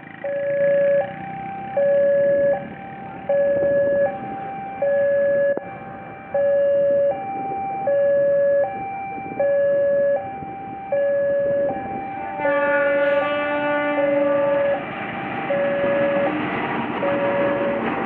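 Diesel locomotive horn (the S35 horn of an Indonesian CC 206 locomotive) sounded in a steady two-note rhythm: a louder lower note and a quieter higher note alternate, about one pair every second and a half. For about two seconds past the middle it sounds a fuller chord, and the rumble of the passing train grows near the end.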